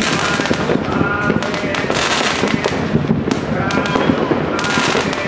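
Fireworks display with a dense, continuous barrage of bangs and crackles, and voices mixed in.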